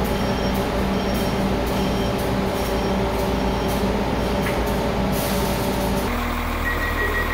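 PATCO railcar's door-closing warning beeping, a little faster than once a second, over the steady hum of the train, while its sliding doors shut; the beeps stop about five seconds in. Near the end a different, steady beeping tone starts.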